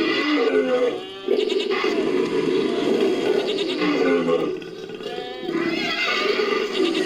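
Designed creature vocalization built from layered animal calls, with a goat-like bleating quality. It comes in three long calls broken by short pauses, one about a second in and a longer one past the middle.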